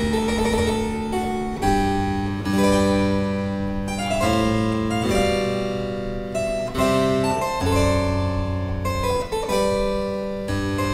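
A plucked keyboard instrument of the harpsichord family playing a slow piece in full chords, a new chord struck with a crisp attack about once a second and left to ring.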